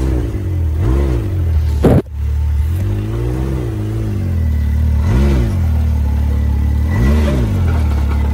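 Can-Am side-by-side's engine running and rising and falling in short throttle blips, about five times, as it crawls slowly over rock. A single loud knock about two seconds in.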